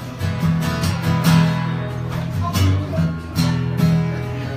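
Acoustic guitar strummed in a steady rhythm between sung verses, with sustained low notes under the strokes.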